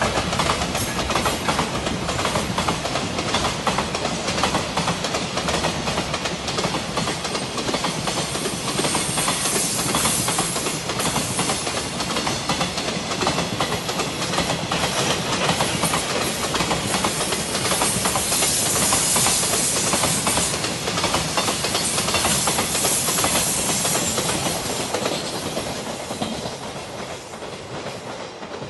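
A long JR freight train of container flatcars rolling past at speed: a steady rumble and hiss with continuous wheel clatter. It fades away over the last few seconds as the end of the train moves off.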